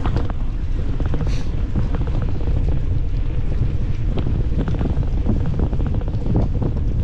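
Wind buffeting the microphone of a camera carried on a moving bicycle: a steady low rumble, with scattered light clicks and rattles.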